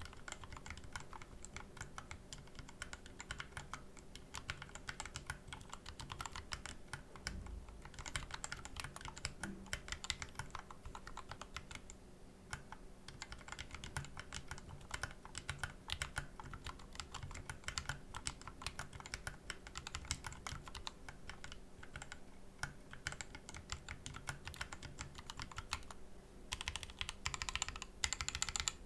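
Continuous typing on a Corne split mechanical keyboard with lubed Tealios V2 67g linear switches, DSA PBT keycaps and a 3D-printed ABS case: a steady stream of key presses with brief lulls, getting louder and denser near the end.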